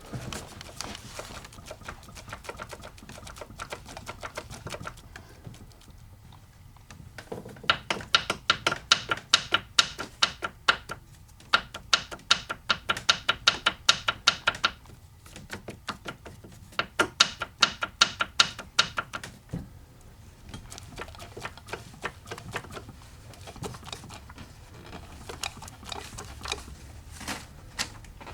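Mercedes-Benz OM616 four-cylinder diesel engine turned over slowly by hand, giving a quick run of sharp metallic clicks and knocks that grows loud in two stretches around the middle and is fainter either side. It is piston slap from the No. 3 piston, whose skirt has broken away below the gudgeon pin.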